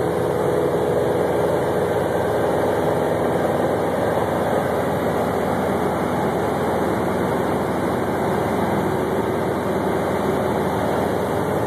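Light aircraft's piston engine and propeller running steadily in flight, a constant drone heard inside the cabin.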